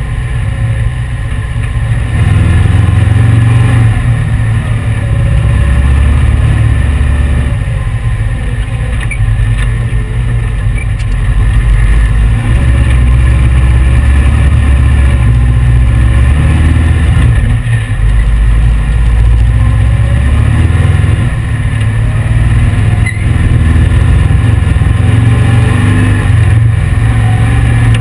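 Dune buggy's 1835 cc air-cooled VW flat-four engine running under way, its note shifting up and down several times as the throttle changes.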